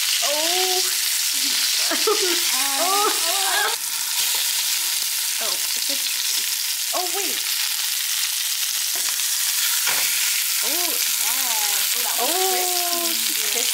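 Salmon fillets sizzling in hot oil in a nonstick frying pan: a steady, even hiss as they are turned with a spatula. Now and then short pitched sounds that rise and fall come through over the sizzle.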